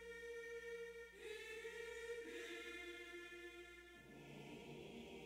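Quiet music of sustained choir-like voices holding long chords, which shift three times.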